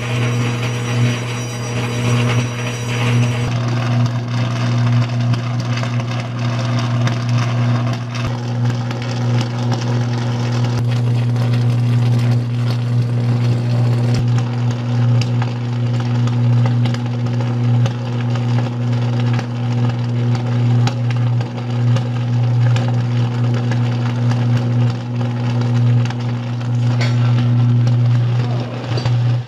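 High-voltage electrical arc burning on a utility pole's insulators: a loud, steady low buzz under constant crackling, which cuts off suddenly at the end.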